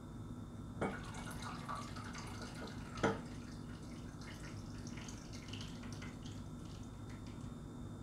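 Frothed milk poured from a glass measuring cup into a glass mug of coffee: a faint, uneven trickle and splash of liquid. Two sharp glass clinks stand out, about one second in and again about three seconds in.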